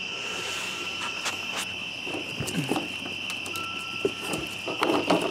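Steady chorus of crickets trilling. Scattered light clicks and a few short scuffling thumps are heard, the loudest just before the end.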